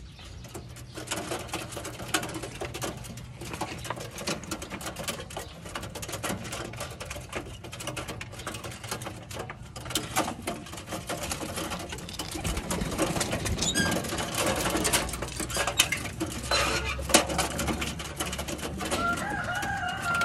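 Dense clicking and rustling as a young pigeon is held and dosed by hand, with a few short bird calls, one about two-thirds of the way in and one near the end.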